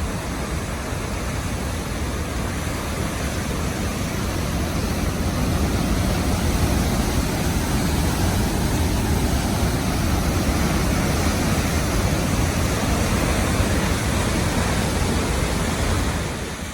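Steady rush of Nairn Falls' falling water, rising a little about five seconds in.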